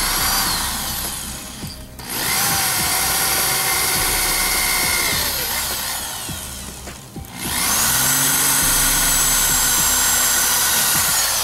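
Electric drill with a fresh bit boring holes in aluminum bar stock, in three runs of a few seconds each, the motor's whine winding down as the trigger is let go between them. The new bit is cutting cleanly where the old one was bent.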